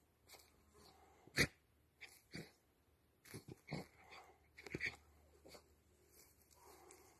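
A Jack Russell Terrier breathing and snuffling in short bursts while it rolls and rubs its back in loose earth, with rustling of soil and dry leaves under it; the loudest burst comes about one and a half seconds in.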